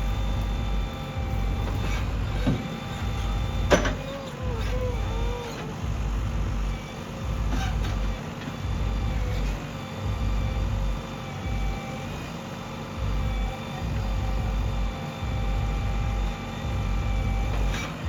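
Heavy diesel engine running steadily, its low rumble swelling and dropping every second or so, with a couple of sharp knocks about two and a half and four seconds in.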